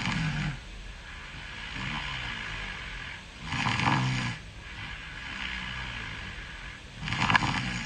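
A person snoring: three loud snores about three and a half seconds apart, with quieter breaths between them.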